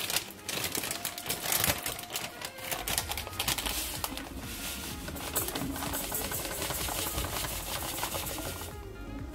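Rapid clicking, tapping and scraping of a kitchen utensil against a bowl as brown sugar is added to egg and worked in, with background music.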